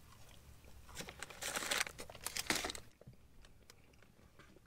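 Paper fast-food packaging crinkling and rustling in a cluster of short bursts lasting about two seconds, starting about a second in, as a fries packet is set down and a burger's paper wrapper is handled.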